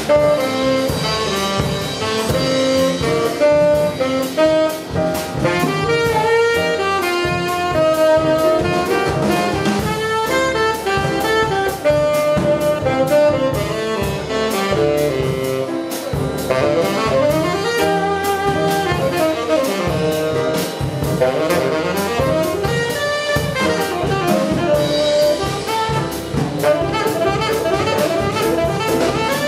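Live jazz quartet: a tenor saxophone plays a flowing line of notes over piano, double bass and a drum kit keeping time on the cymbals, with no break.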